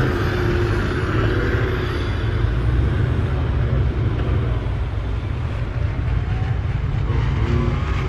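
LS6 V8 engine swapped into a Nissan Patrol, running steadily at low revs without revving up.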